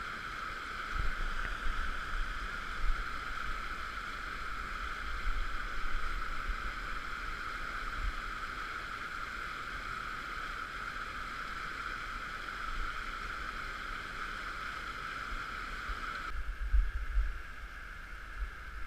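Steady rushing of a brook's flowing water, with wind buffeting the microphone in low thumps. The water sound shifts a little about sixteen seconds in.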